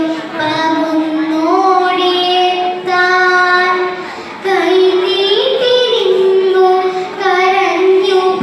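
A child's voice chanting a poem recitation in a sung, melodic style, holding long drawn-out notes that step and slide between pitches, with short pauses for breath.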